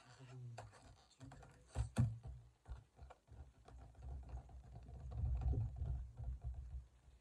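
Inflated latex balloon being knotted and handled: scattered small rubbery clicks and squeaks, with a sharp snap about two seconds in. Later a low rubbing rumble as the balloon is pressed right up against the phone.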